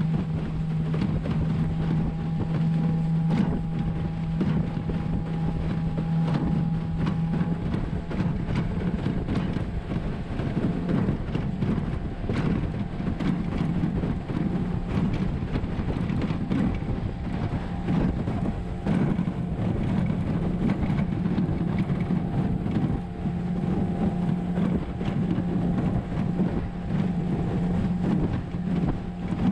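A small aluminium boat's motor running with a steady hum while under way, with wind buffeting the microphone and water splashing against the hull.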